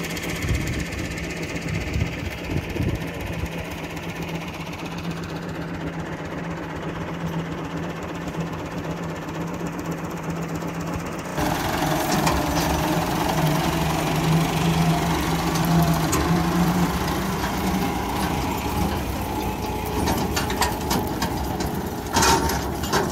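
Massey Ferguson 385 tractor's diesel engine running steadily with a wheat thresher's machinery going beside it. The sound becomes louder and brighter about halfway through, and a short clattering burst comes near the end.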